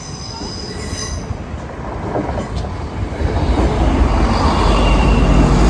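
Passenger train running over the level crossing, its low rumble building steadily louder as it draws close, with a faint high wheel squeal partway through.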